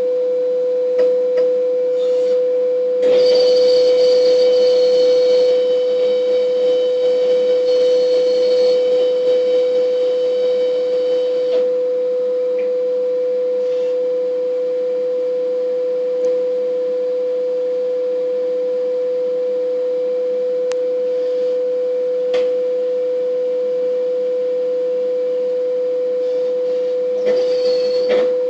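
Agfa Avantra 25 imagesetter running with a steady, high-pitched tone. From about three seconds in to about twelve seconds a louder stretch of mechanical noise with faint higher whines joins it, followed later by a couple of single clicks.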